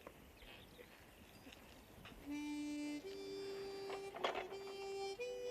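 Quiet background for about two seconds, then a slow tune on a reed instrument: long held notes stepping upward.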